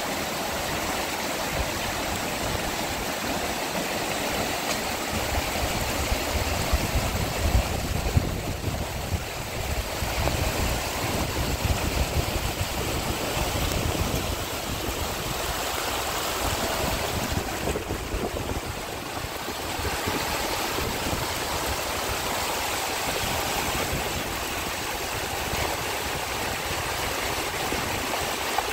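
Steady rushing of water, an even hiss, with wind gusts rumbling on the microphone in the first half.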